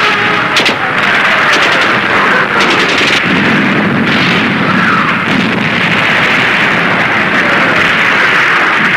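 Battle sound effects: a continuous din of explosions and gunfire, with clusters of rapid shots in the first three seconds and several descending whistles like incoming shells.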